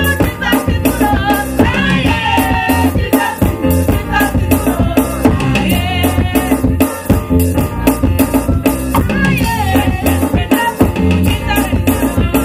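Cameroonian bend-skin gospel music: women singing over a fast, steady beat of drums and shaker rattles with a strong, repeating bass line.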